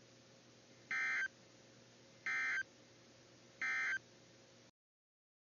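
Three short bursts of NOAA Weather Radio EAS/SAME digital data tones, the end-of-message code that closes the required weekly test, each a fraction of a second long and about 1.4 seconds apart, over faint hiss from the radio receiver. The audio cuts off a little before the end.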